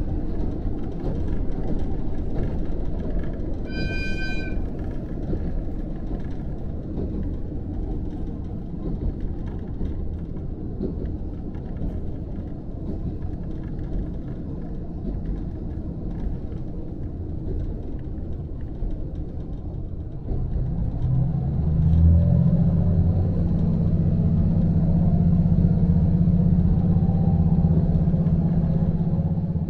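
Inside a KiHa 54 diesel railcar under way: a steady rumble of engine and wheels, with a short horn blast about four seconds in, sounded as a warning to a deer running along the track ahead. About twenty seconds in, the diesel engine's note rises and holds louder as it powers up.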